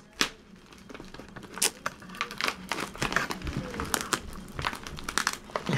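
Black plastic mailer bag crinkling and crackling as it is pulled and torn open by hand, with many irregular sharp crackles.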